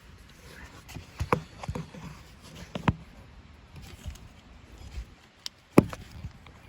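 A few separate sharp clicks and knocks, with no engine cranking or running, as the key is worked on a John Deere 4105 compact tractor whose fuel shutoff solenoid does not pull its plunger in.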